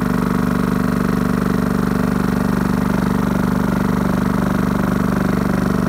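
Iwata portable electric air compressor's motor and piston pump running, pumping air into its small tank as pressure builds. A steady, even hum with a fast pulse.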